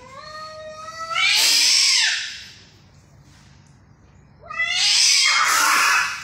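Two domestic cats in a fight: a long, rising yowl, then a loud, harsh screech about a second in. A second loud screech follows about four and a half seconds in, as the cats lunge at each other and grapple.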